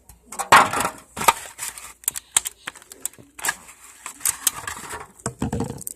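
Glossy slime being worked by hand: irregular sticky clicks and pops, with short squelching bursts.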